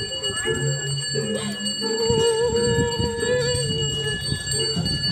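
Bells ringing steadily without a break. About two seconds in, a voice cries out in one long wavering held note lasting about a second and a half, over the noise of a crowd.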